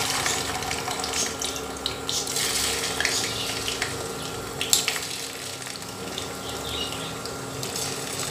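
Raw potato pieces sizzling as they start to deep-fry in hot sunflower oil: a steady hiss with scattered crackles and one louder pop about halfway through.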